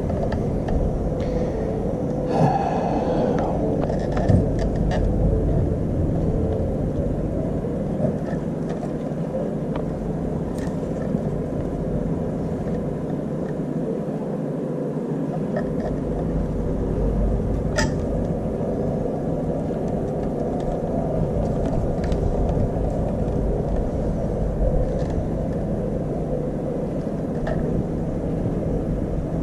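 Steady low rumble with a few light clicks now and then, one sharper click just past the middle.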